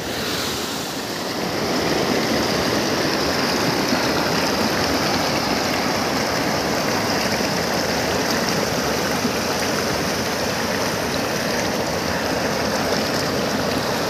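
River water rushing and churning close up where it pours over a low overflowing concrete weir. It is a steady, full rush that grows a little louder about two seconds in.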